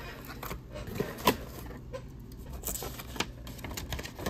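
Paper and cardboard being handled: a sheet of card stock is lifted out of a cardboard box with light rustles and scattered soft taps, and a sharper tap about a second in.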